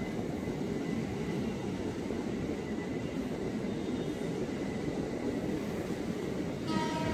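JR 205 series electric commuter train running past on the tracks: a steady rumble of wheels and running gear. Near the end a pitched sound with several stacked tones cuts in suddenly.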